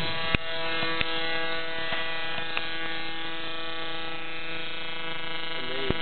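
Steady electrical buzz from a home-made 45 kV AC high-voltage supply of two coils driving an arc through a spark gap into a broken microwave magnetron whose vacuum has been destroyed. A few sharp snaps sound in the first few seconds.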